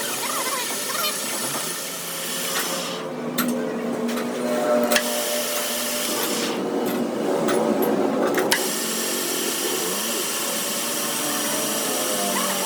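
A workshop power tool running, with a few sharp clicks.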